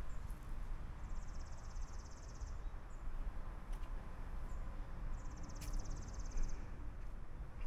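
An insect calling in two pulsed, high-pitched buzzes, each about a second and a half long, the first about a second in and the second about five seconds in, over a low steady rumble.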